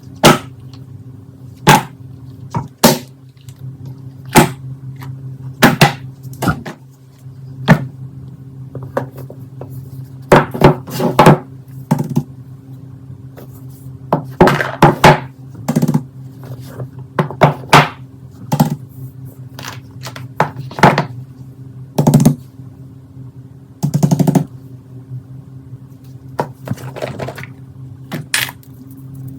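Plastic fidget toys being handled, tapped and set down: irregular sharp clicks and knocks, sometimes in quick clusters, over a steady low hum.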